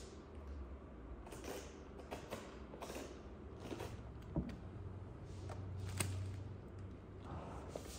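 Metal spoon scraping and scooping out the inside of a raw white cabbage head: a series of short, crisp crunching scrapes, with two sharper clicks in the middle.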